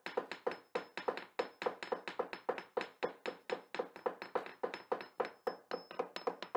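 A fast, even run of sharp knocks, about five a second, each with a short pitched ring, like a hammer tapping a hard resonant surface.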